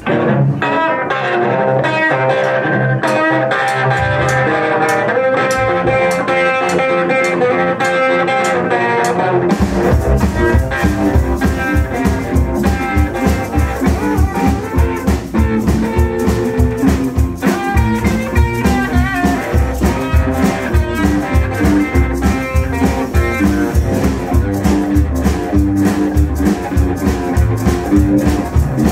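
Live band of electric guitars, upright bass and drums playing a song. Electric guitar plays alone at first, then about nine seconds in the upright bass and drums come in with a steady beat.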